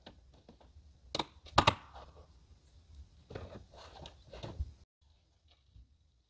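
Camping gear being handled in an SUV's rear cargo area: scattered knocks and clunks. The loudest are a pair about a second and a half in, followed by a cluster of rattling knocks, then the sound stops abruptly about five seconds in.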